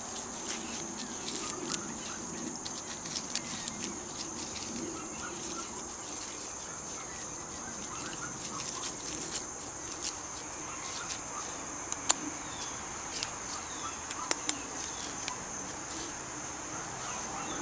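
Outdoor ambience: a steady high insect drone, with scattered sharp clicks and rustles and faint short chirps.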